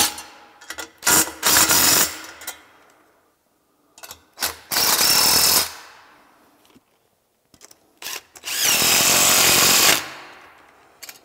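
Cordless DeWalt driver running band-clamp screws tight on a turbo charge pipe, in short bursts of about a second each with pauses between; the last and longest burst, near the end, carries a whine that dips in pitch.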